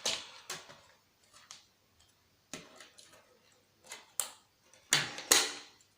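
Plastic and metal parts of a PlayStation 3 being handled and set down during a teardown: scattered clicks and light knocks, the two loudest close together near the end.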